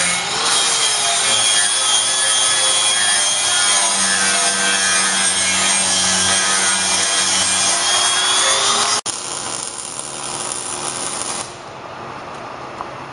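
Angle grinder grinding a metal frame tube of a brew stand: a steady whine under a harsh grinding hiss. It cuts off abruptly about nine seconds in, leaving a quieter background noise.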